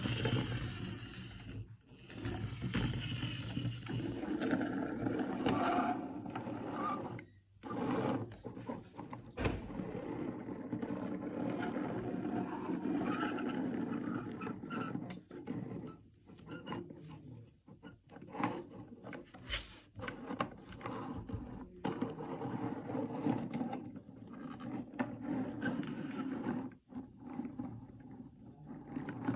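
Toy vehicles being played with: plastic scraping and rattling with irregular clicks and knocks.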